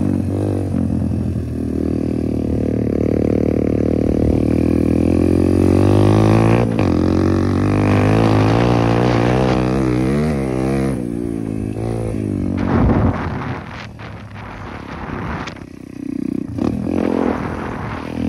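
Motocross dirt bike engine running hard under a rider, its pitch rising and falling with the throttle as it crosses rough grass. About eleven seconds in the throttle eases off and the engine drops to a lower, quieter, rougher running with scattered knocks.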